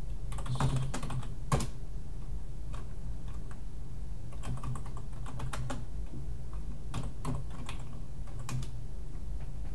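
Typing on a computer keyboard in several short runs of keystrokes, entering terminal commands, over a steady low hum.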